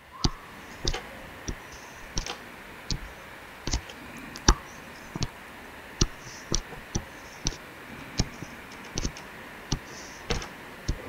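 A pen stylus tapping and sliding on a drawing tablet as lines are drawn. It makes irregular sharp clicks, about one or two a second, with faint scratchy strokes between.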